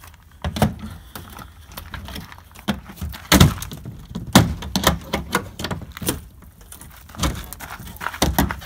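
Irregular knocks and cracks as an RV window frame is pried and pulled loose from its aluminum-sided wall with a flat metal pry bar. The two loudest knocks come about three and a half and four and a half seconds in.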